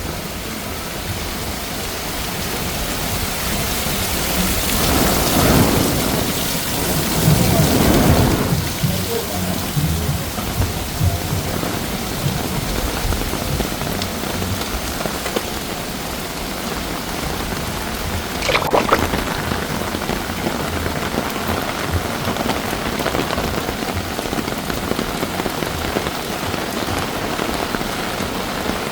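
Heavy rain pouring steadily, with a rumble of thunder that swells and fades between about four and nine seconds in. A brief sharp crack comes about two-thirds of the way through.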